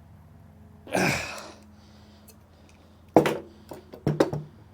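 A short breathy rush about a second in, then a sharp click and a quick run of clacks near the end. These are hard knocks from handling the hydraulic wire crimper and its dies once the crimp is finished.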